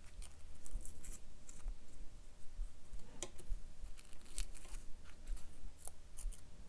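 A thin paper quilling strip being handled and shaped by fingers against a paper template: faint scattered rustles and small crisp ticks, over a low steady hum.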